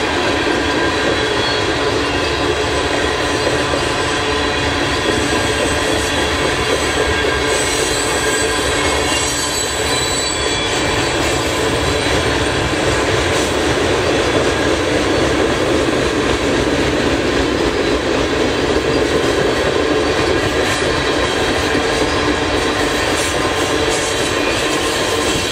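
Freight train cars rolling past at close range: a steady rumble of wheels on rail with thin, high squealing tones from the wheels.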